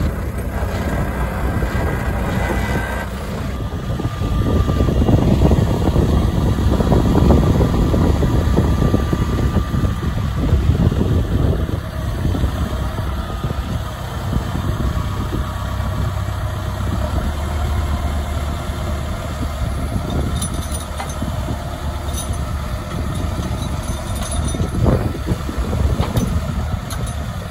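Massey Ferguson 6455 Dyna-6 tractor's diesel engine running steadily while it drives the hydraulic hedge-cutter arm. It grows louder for several seconds a few seconds in, then settles back.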